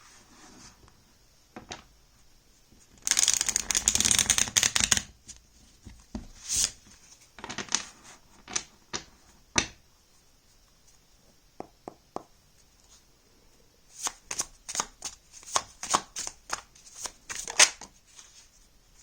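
A deck of oracle cards being shuffled by hand: a dense burst of rapid riffling lasting about two seconds, then scattered single card snaps and taps, and another run of quick flicks near the end.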